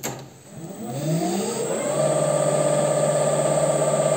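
A WM210V benchtop metal lathe is started with a click. Its motor and spindle whine rises in pitch over about a second and a half as the chuck spins up, then runs at a steady speed, turning the clamped rod for a runout check with a dial indicator.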